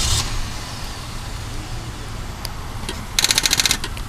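A Volvo's starter clicking rapidly for about half a second when the key is turned, without cranking the engine. This fast chatter is typical of a starter solenoid on a battery too weak to turn the engine, and the owners suspect the battery or starter. A steady low rumble runs underneath.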